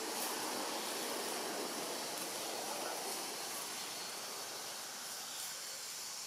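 Steady outdoor background noise: an even hiss with no distinct calls or knocks.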